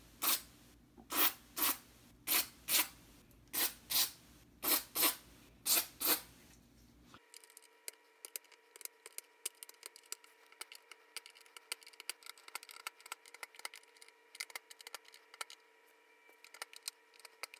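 DeoxIT contact cleaner sprayed from an aerosol can into valve (tube) sockets in short hisses, mostly in pairs, about a dozen in the first six seconds. After that come faint scattered clicks and ticks over a faint steady hum.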